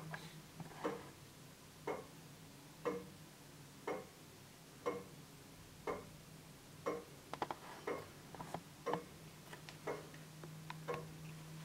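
The deadbeat escapement of a circa-1860 Dent astronomical regulator longcase clock ticking once a second, in an even beat, as its seconds pendulum swings. A few extra small clicks come between the beats after about seven seconds.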